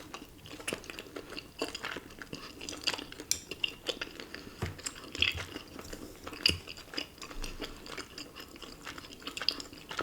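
Close-miked chewing of chewy Korean rice cakes (tteok) with cheesy ramen: irregular wet mouth clicks and smacks.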